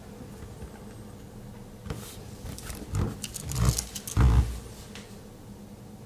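Handling noise of a Swiss Army pocketknife being worked close to the microphone: a flurry of clicks and a few dull bumps from about two seconds in until about five seconds in, over a steady low hum.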